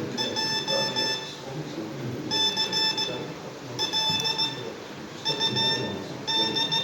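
Morse code practice oscillator beeping as a key sends code by hand: a buzzy tone of about 900 Hz keyed in dots and dashes, in character groups separated by short gaps. The sender is gradually speeding up.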